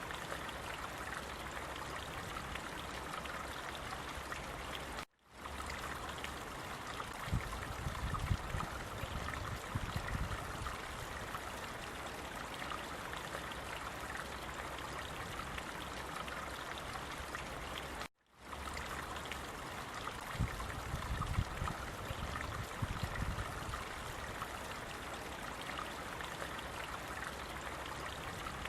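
Steady rush of running water, like a stream, that cuts out for a split second twice, about 13 seconds apart, with a few seconds of deeper low bumping after each cut.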